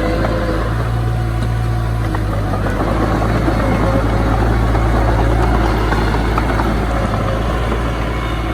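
Heavy diesel construction machinery running steadily: a continuous low engine drone that swells slightly around the middle.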